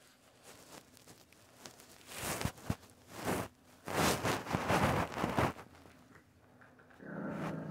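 Bursts of rustling and scuffing, loudest from about four to five and a half seconds in, as the phone is swung around; near the end a puppy starts a low growl.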